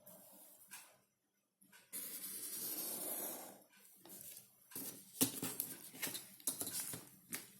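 Pen drawing along a ruler on paper: a scratchy stroke about two seconds in, lasting about a second and a half. Then a string of sharp clicks and taps as the ruler and pen are handled on the desk.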